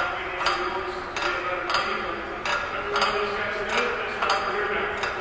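Background music with a steady beat, a little under two beats a second, and a voice over it.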